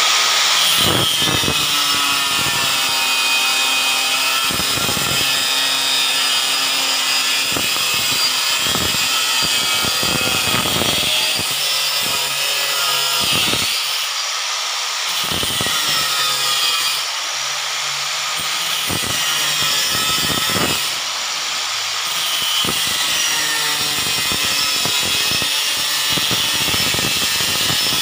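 ENKA Slim (LY-S1004) 4-inch angle grinder cutting through 5 mm-thick iron with a thin cut-off disc: a loud, steady high-pitched grinding of the disc in the metal over the motor's whine, easing off briefly a few times in the middle.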